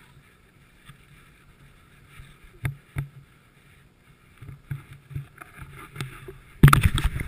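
Camera handling noise: scattered knocks and rubbing against the action camera's body and microphone, with a loud burst of scraping near the end.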